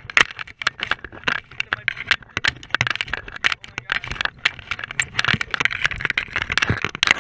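Rapid, irregular knocks, slaps and scrapes on wooden pier deck boards as a freshly landed tautog flops on the planks.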